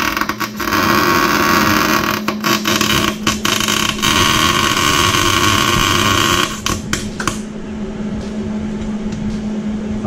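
Arc welder welding the rear differential's spider gears together to lock the axle (a welded 'Lincoln locker'): a loud steady hiss broken by several short stops and restarts, ending about seven seconds in, leaving a steady low hum.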